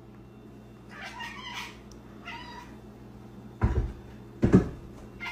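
A cat meowing twice, short calls about a second apart, then two loud thumps about a second apart as it jumps down from the top of a refrigerator onto the kitchen counter.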